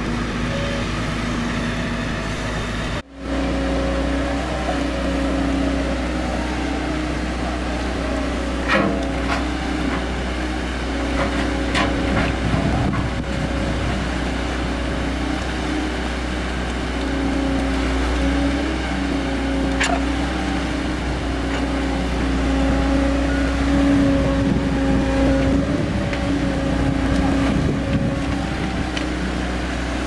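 Diesel engine of an amphibious backhoe dredger running steadily, its note swelling and easing as the hydraulic excavator arm works, with a few sharp clanks.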